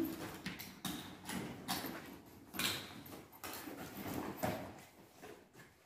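Handling noises from school bags being opened and papers pulled out: a string of short, irregular rustles and scuffs.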